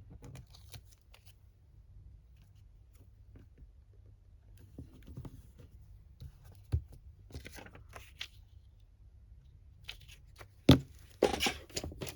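Paper being handled on a desk: faint scattered rustles and light taps, then a sharp knock near the end followed by a piece of paper being cut off.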